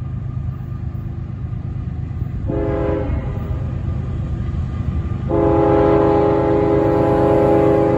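Horn of an approaching CSX diesel freight locomotive sounding a chord: a short blast about two and a half seconds in, then a long blast from about five seconds in. A steady low rumble from the locomotives runs underneath.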